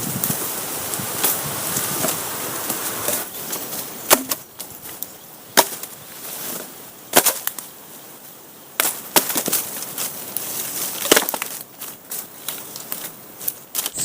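Wood being chopped with a blade: sharp single strikes roughly every one and a half seconds, with quieter rustling between them.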